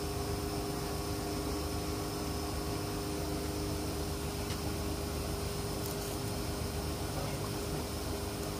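Steady drone of a running motor or engine, unchanging throughout, with a couple of faint clicks about four and a half and six seconds in.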